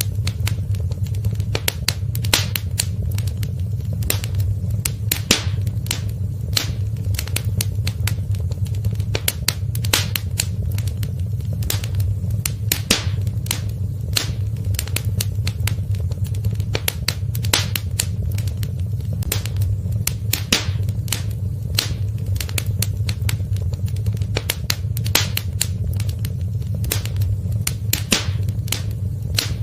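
Wood fire in a fireplace crackling, with many sharp pops and snaps coming irregularly, several a second, over a steady low rumble.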